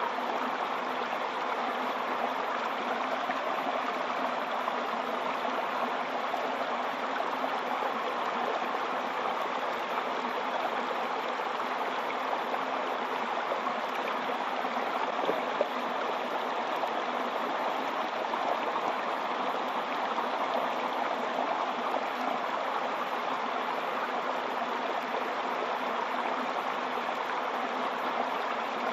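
Waterfall: falling water splashing in a steady, even rush.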